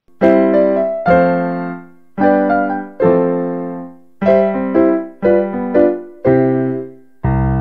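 Outro theme music on a keyboard with a piano sound: chords struck about once a second, each ringing out and fading before the next.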